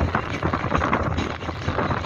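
Wind buffeting the microphone in irregular gusts over the steady low drone of a tour boat's engine.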